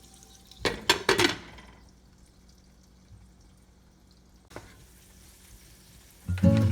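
A quick cluster of three or four sharp clinks about a second in, then one faint tick; background music starts near the end.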